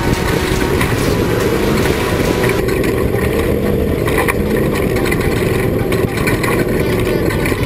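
Off-road race vehicle's engine running loud and steady, its pitch wavering up and down. The high hiss drops away about two and a half seconds in.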